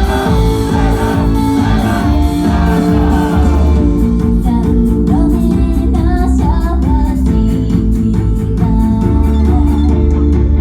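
A pop-rock song performed live, with singing over guitar and a steady beat.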